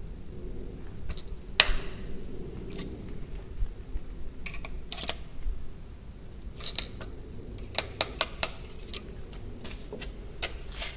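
Sharp clicks and taps of a ramrod and loading rod working in the barrel of a black-powder muzzle-loading match pistol as it is loaded, with a quick run of four clicks about eight seconds in.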